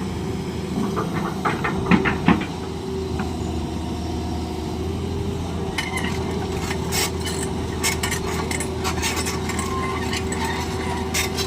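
Hitachi excavator's diesel engine running steadily, with metallic clanks and clinks over it: a few loud ones about two seconds in, then a rapid scatter of them from about six seconds on.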